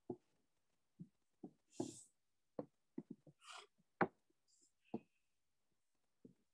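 Faint, irregular soft knocks and clicks, about a dozen in a few seconds, with a few short hissing rustles between them.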